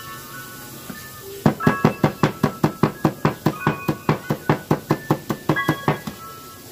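Kitchen knife chopping red chili on a wooden cutting board: rapid, even knocks of the blade on the board, about five or six a second, starting about a second and a half in and stopping near the end.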